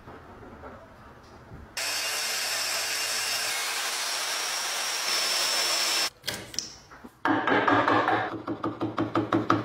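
Quiet handling at first, then a power saw running steadily with a high whine for about four seconds. After a short break comes rapid rhythmic scraping on wood, about five strokes a second.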